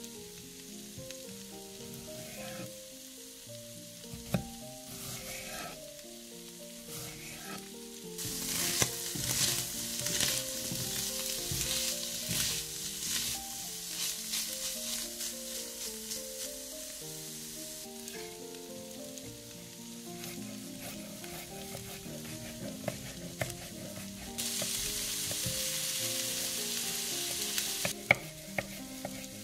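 Food sizzling and frying in a pan while being stirred with a spatula, with a soft background melody throughout. The sizzle swells twice, and a sharp knife tap on a wooden cutting board sounds near the end.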